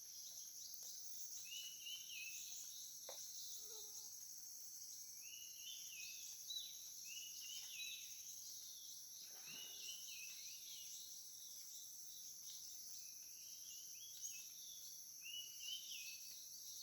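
Tropical forest ambience: a steady high-pitched drone of insects, with short bird chirps coming and going over it.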